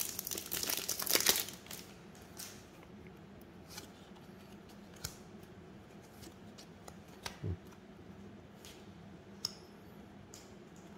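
Foil trading-card booster pack crinkling as it is torn open for about the first second and a half, then a few scattered soft clicks and taps of cards being handled.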